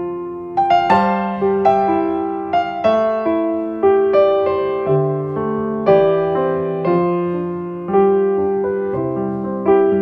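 Background piano music: a slow, gentle melody of single notes and chords, each struck and left to fade.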